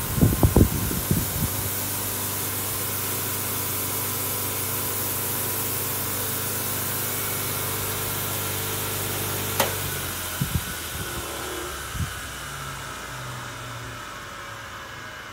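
Canning three-phase industrial polisher running, with a steady motor hum and the whir of its spinning cloth polishing mop, and a few knocks in the first second or so. About ten seconds in there is a sharp click, the motor hum stops, and the whir slowly fades with falling pitch as the mop coasts down.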